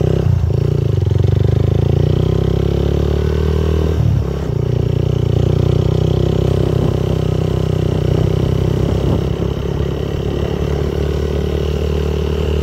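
Motorcycle engine running steadily while riding, its pitch and level dipping briefly about four seconds in as the throttle eases, then picking up again.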